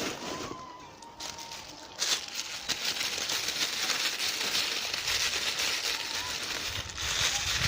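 Paper packaging rustling and crinkling as it is pulled out of a box and handled, a dense crackle that grows busier about two seconds in.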